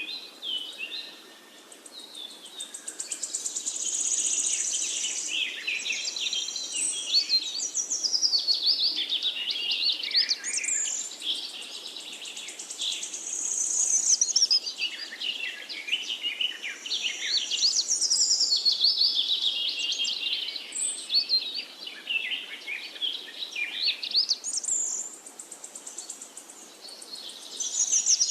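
Songbirds singing together: a dense chorus of quick, high chirps and trills that swells and eases every several seconds.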